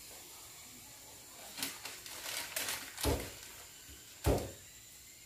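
Metal tongs clicking and knocking against a pan while rice twists are turned in bubbling caramelized sugar, with two louder knocks about three and four seconds in, over a faint steady hiss.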